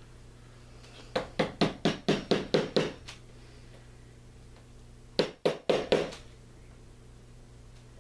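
Small hammer tapping push pins into cork roadbed to hold model railroad track: a quick run of about eight light strikes, about four a second, then after a pause four more.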